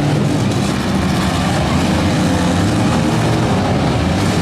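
Several compact cars' engines running and revving at once, their pitches overlapping and shifting as the cars drive and push against each other in a demolition derby.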